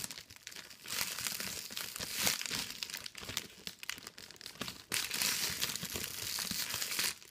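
Clear cellophane gift-basket wrap crinkling and rustling as hands grip and pull at its gathered top, in irregular crackly bursts that swell a little over two seconds in and again after about five seconds.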